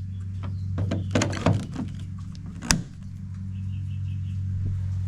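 Plastic clicks and rattles from a J1772 charging connector being handled in the car's charging inlet while its latch button is worked, with one sharp click a little past halfway. A steady low hum runs underneath.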